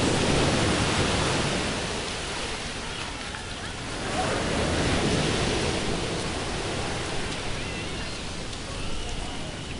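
Ocean surf washing ashore, swelling about twice, with wind rumbling on the microphone.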